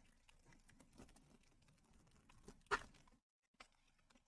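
Faint rustles and light clicks of a Pokémon card booster pack being handled and opened, with one louder crinkle about two and a half seconds in.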